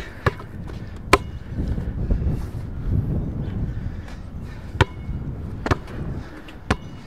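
A basketball bouncing on an outdoor hard court: about five single, sharp bounces at irregular spacing, over a low steady rumble.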